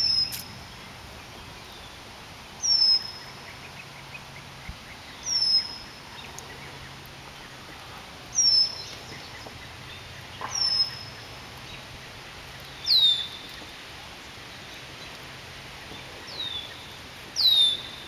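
A bird calling over and over: short, high whistled notes that slide downward, about eight of them, two to three seconds apart.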